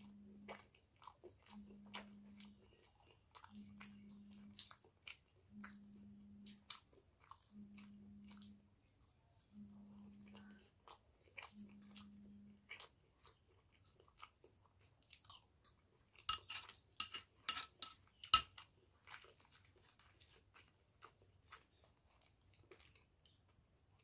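A person eating: chewing with many small wet mouth clicks. Past the middle comes a short run of louder crunching that ends in one sharp crack. Through the first half, a low hum pulses on and off about every two seconds.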